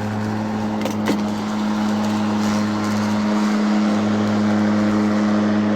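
Battery-powered Mowrator 2WD remote-control lawn mower running with its blade engaged as it climbs a hill: a steady electric hum, with a couple of brief clicks about a second in.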